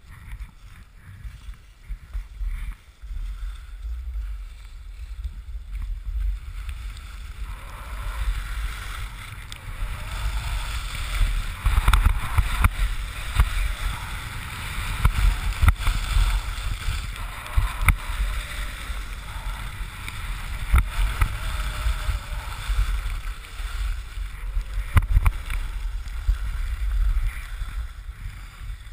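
Wind buffeting a GoPro's microphone while skiing downhill, with the hiss and scrape of skis on packed snow that grows louder about eight seconds in as the pace picks up.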